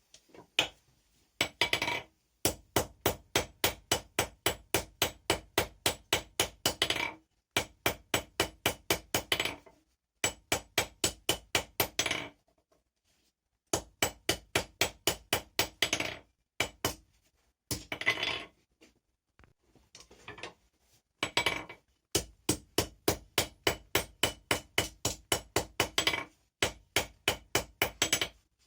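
Hand hammer forging steel on an anvil: quick, steady runs of ringing blows, about three a second, each run a few seconds long with short pauses between.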